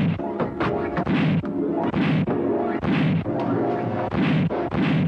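Dubbed punch sound effects in a fistfight, landing about once a second over dramatic background music.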